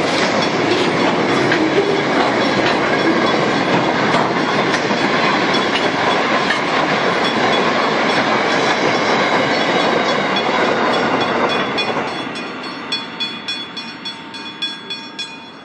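Steel freight train's wagons rolling past with a steady rumble and rattle. About twelve seconds in, the sound fades as the last wagons draw away, leaving a run of separate wheel clicks over the rails.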